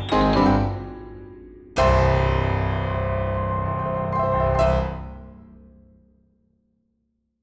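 Background music on piano or keyboard: a quick rising run of notes, then a loud held chord about two seconds in that rings and dies away to silence near the end.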